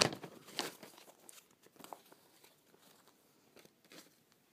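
Paper rustling and crinkling as it is handled, with a few sharp crackles in the first second, then only faint scattered rustles.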